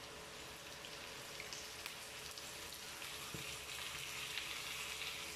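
Raw chicken pieces sizzling as they are added to a hot pan of onions and garlic: a steady frying hiss with small scattered pops that grows louder in the last couple of seconds.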